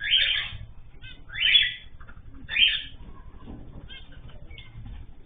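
Caged pet birds calling: three loud, harsh calls, each about half a second long, in the first three seconds, with softer short chirps between them and afterwards.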